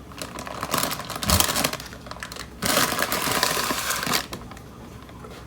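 Packaging crinkling and rustling as kitchen supplies are handled. There are two bursts: a crackly stretch in the first couple of seconds, then a louder rustle just past the middle.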